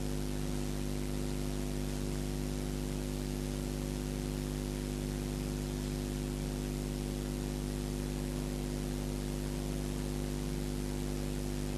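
Steady hiss with a low, even hum made of several constant tones; no distinct knocks or handling sounds stand out.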